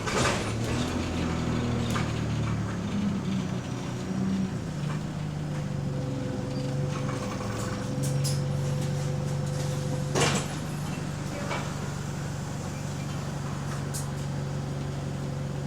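Bus engine running, heard from inside the passenger saloon, its drone stepping in pitch as the bus drives on. A sharp knock comes right at the start, and a louder knock or bang comes about ten seconds in.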